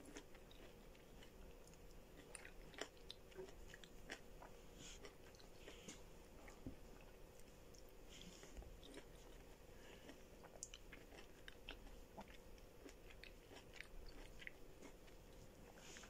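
Faint chewing: a person eating with irregular small mouth clicks close to the microphone.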